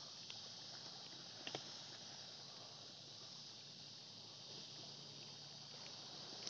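Near silence: a faint steady hiss, with two faint clicks.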